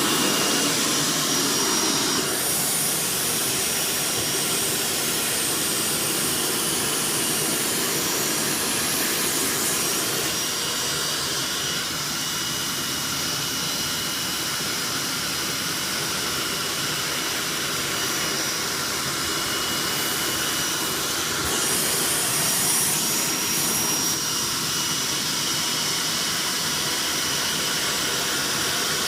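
Hoover SteamVac SpinScrub carpet cleaner running steadily: a loud rush of air with a high whine from its suction motor. The rushing brightens and dulls a few times along the way.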